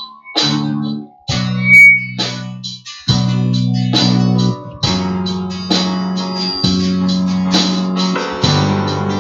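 Worship band instrumental interlude: guitar chords with bass, played in a stop-start rhythm.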